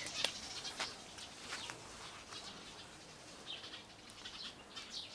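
Small birds chirping at dusk: short, scattered high calls, several birds twittering on and off.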